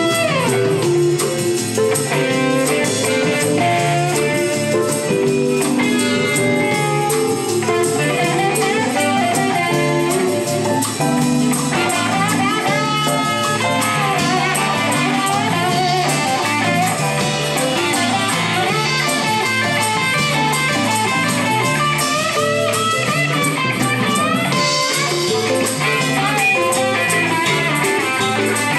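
Live blues-rock band playing an instrumental jam: electric guitar and keyboard over a steady, repeating bass groove. From about twelve seconds in, a busier, higher lead line with bending notes comes in over the top.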